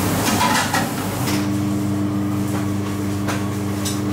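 Steady machine hum from a running kitchen appliance. A second, higher steady tone joins it about a second in, with a few light knocks and taps from handling on the counter.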